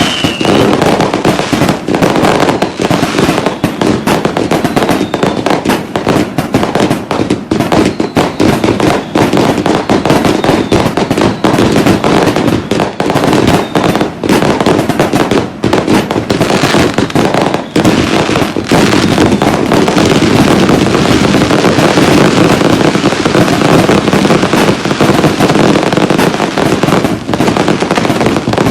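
Dense, continuous barrage of fireworks and firecrackers: bangs and crackling overlap without a break, with a brief falling whistle near the start.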